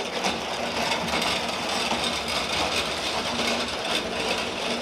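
Manual pallet jack loaded with a crated air compressor being pushed over rough asphalt: a steady rolling rattle and rumble from its small hard wheels and the load.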